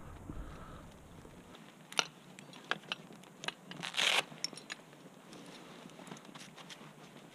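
Scattered clicks and scrapes of a tree climber's rope and gear handling, with a short rasping burst about four seconds in.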